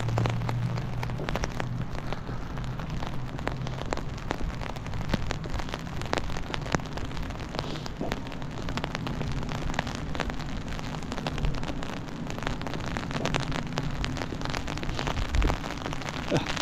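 Light rain falling on an umbrella canopy just overhead: many irregular raindrop ticks over a steady hiss.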